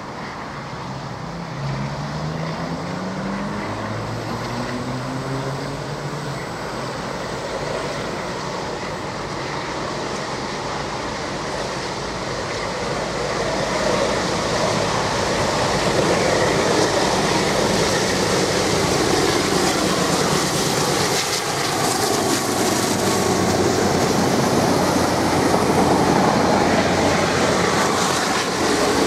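NSW 44 class Alco diesel-electric locomotive working hard up a grade, its engine note rising in pitch a few times in the first few seconds. The noise grows louder about halfway through as it comes close, and near the end the rumble and clatter of the passenger carriages rolling by takes over.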